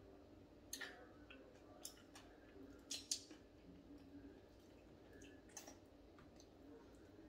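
Faint sounds of eating fried tilapia by hand: a handful of soft mouth smacks and clicks as fingers are sucked and fish is picked from the bone, the loudest a little after three seconds in.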